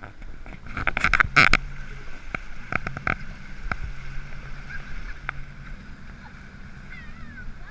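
Ford F-150 fording a creek, heard from inside the cab: a low steady engine hum with water rushing and splashing against the truck, loudest about a second in. Several sharp knocks follow over the next few seconds.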